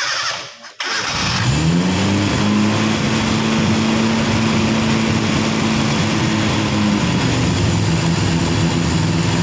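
Toyota K-series four-cylinder engine starting about a second in and running, its speed climbing and then holding steady. About seven seconds in the engine speed drops to a lower, even idle as the distributor is rotated to set the ignition timing by ear.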